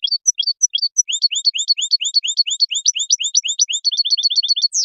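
European goldfinch singing. A few separate chirps give way to a quick run of repeated rising notes at about five a second, which speeds into a fast trill near the end and finishes with a sharp downward sweep.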